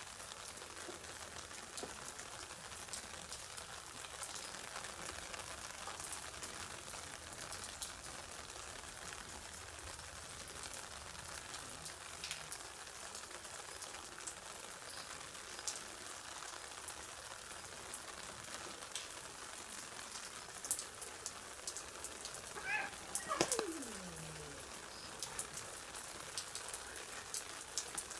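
Steady rain falling, an even hiss with scattered tapping drops. Near the end comes one short cry that falls steeply in pitch.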